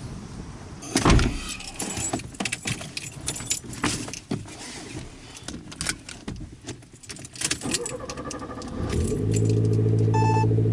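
Keys jangling and handling clicks and knocks, then a car engine starts about eight and a half seconds in and settles into a steady idle. A short beep sounds near the end.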